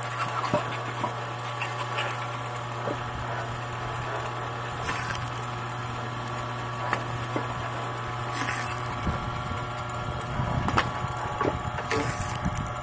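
Homemade crank-driven log splitter's drive running with a steady hum, with scattered knocks of split firewood being handled. From about nine seconds in, the ram pushes a log into the wedge and the wood cracks and splits with louder knocks.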